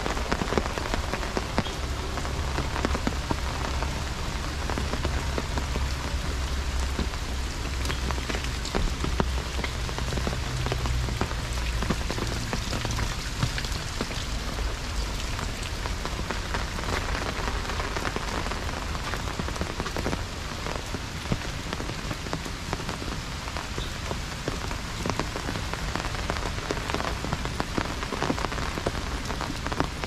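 Heavy rain falling on an open umbrella overhead and on the surrounding forest leaves: a dense, steady patter of drops. A low rumble runs underneath, stronger in the first half.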